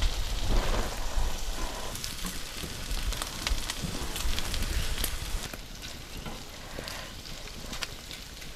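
Makchang (grilled intestines) sizzling on a hot griddle pan: a steady frying hiss peppered with small crackles and pops, easing a little in the second half.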